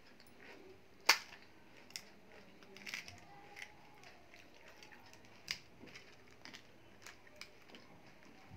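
Crisp fried pani puri (golgappa) shells cracking as they are pressed open by hand: one sharp crack about a second in, the loudest, then a handful of smaller cracks and crackles spread through the rest.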